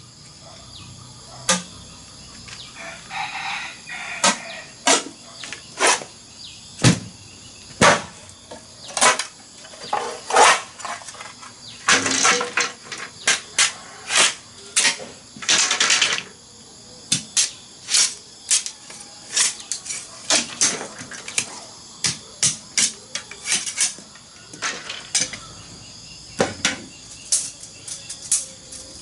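Machete blade chopping into a green bamboo pole, a long series of sharp, separate strikes about one to two a second, with two longer, rougher sounds near the middle.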